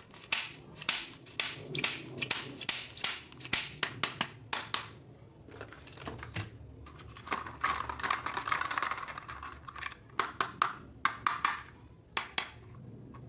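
Rapid clicks and taps of hard plastic being handled, with a stretch of rustling from about seven to nine and a half seconds in.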